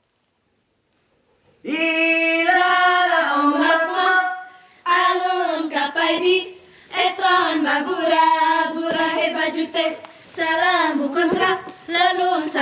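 Unaccompanied Saman song from Aceh sung in phrases with short breaks. It starts after about a second and a half of silence.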